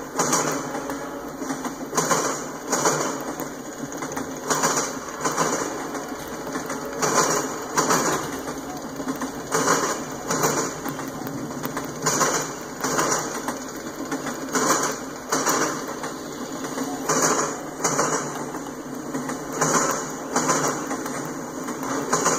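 Freight train of autorack cars rolling past at low speed: a steady rolling rumble with loud wheel clacks that come in close pairs about every two and a half seconds, as the trucks at each car joint cross the same point in the rails.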